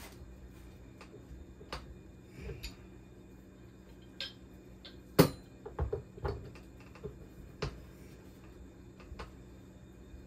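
Scattered metal clicks and knocks of wrenches on a John Deere 5310's double-ended hydraulic steering cylinder clamped in a bench vise, as the cylinder is worked loose for disassembly. The loudest is one sharp knock about five seconds in, followed by a few more knocks.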